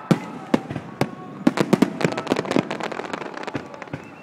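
Aerial fireworks exploding: a few separate sharp bangs, then a dense run of crackling pops about a second and a half in that thins out toward the end.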